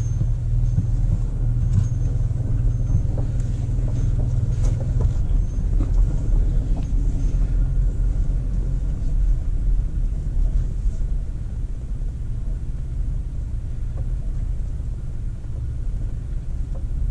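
Steady low rumble of a car being driven, heard from inside, with a few faint clicks and rattles.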